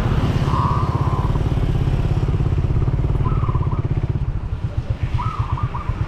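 Small motorcycle engine running with a fast, even pulsing beat, which eases a little about four seconds in.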